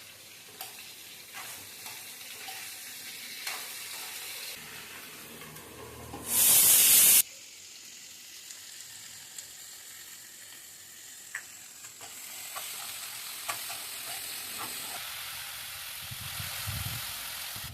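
Chicken and vegetables sizzling in a hot pan while a spatula stirs them, with scattered sharp clicks and scrapes. About six seconds in there is a sudden loud hiss lasting about a second. The sizzling grows fuller and steadier in the second half.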